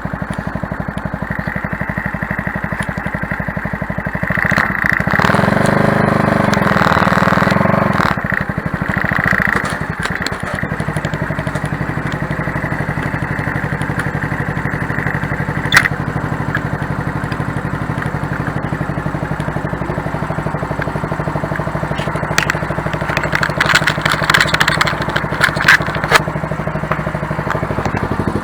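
Motorcycle engine idling steadily through a cheap aftermarket silencer, which the owner finds has made it quieter. It revs up briefly about five seconds in. There is a sharp click in the middle and a patch of crackling clicks near the end.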